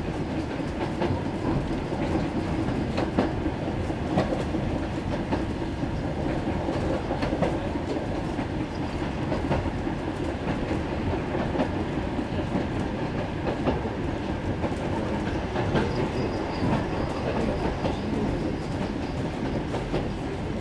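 Coach of a steam-hauled train running along the line: a steady rumble inside the carriage, with the wheels clicking over the rail joints.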